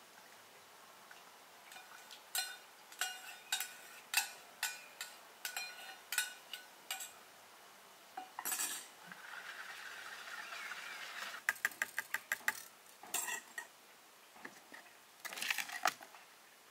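A metal kitchen utensil knocking and scraping against plastic mixing bowls: irregular sharp clinks for several seconds, a spell of steady scraping, then a quick run of about eight taps a second, and a last cluster of clinks near the end.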